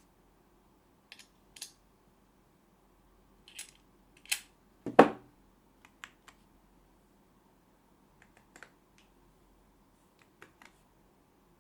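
Scattered sharp clicks and taps from a split mechanical keyboard and its parts being handled, with one louder knock about five seconds in.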